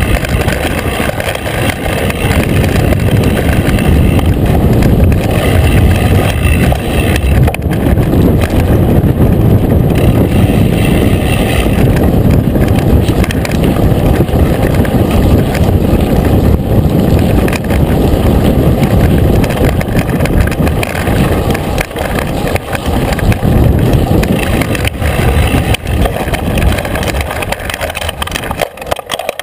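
Mountain bike riding fast down a rough dirt trail: wind buffeting the handlebar-mounted camera's microphone, mixed with the rumble and rattle of the knobby tyres and bike over the bumpy ground, easing slightly near the end.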